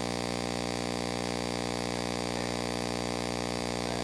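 Steady electrical mains hum with many evenly spaced overtones in the sound feed; nothing else stands out over it.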